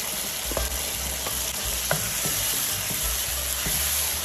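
Masala sizzling in a pan of hot oil as pre-fried potato pieces are stirred in, with a few light clicks from the stirring.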